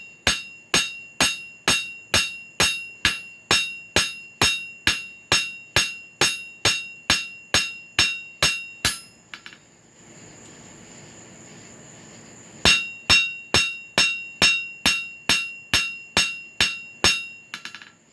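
Small ball peen hammer striking the hot, flattening head of a steel nail on an anvil in a steady rhythm of about two blows a second, each blow ringing. The blows stop for about three seconds partway through, leaving a steady hiss, then start again.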